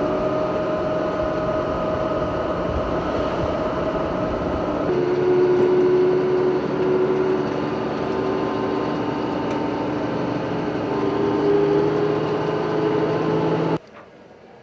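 Vehicle engine running while driving: a steady drone with whining tones that shift lower about five seconds in, cutting off abruptly near the end.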